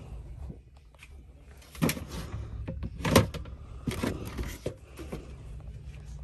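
Stacked plastic storage containers and bins being shifted on a store shelf, clacking against each other and the shelf: a few sharp clacks, the loudest about three seconds in, over a low steady hum.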